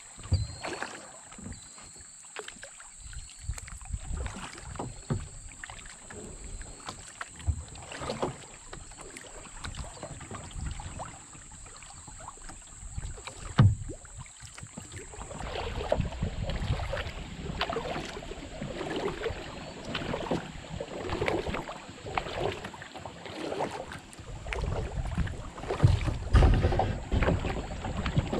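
Kayak paddling on a calm river: paddle blades splashing and dripping, with scattered knocks and one sharp knock about halfway. The water and wind noise grows louder in the second half.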